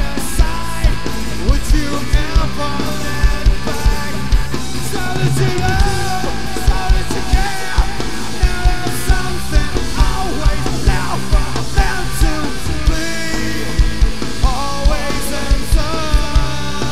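A live rock band plays loud: distorted electric guitar, bass guitar and drums, with a steady pounding drum beat and bending guitar notes.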